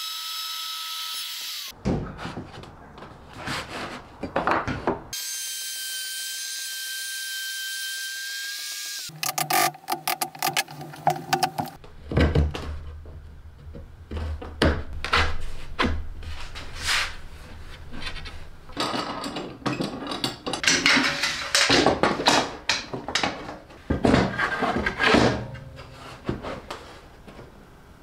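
Woodworking sounds: a handheld Porter-Cable router motor whining steadily for about four seconds, then a long run of irregular knocks, taps and scraping from hand-tool work on poplar boards.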